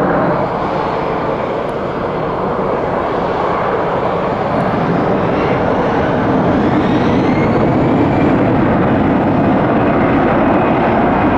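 Airbus A319-100 jet engines at takeoff power on departure: a loud, steady jet noise that swells slowly, with a faint whine rising in pitch partway through.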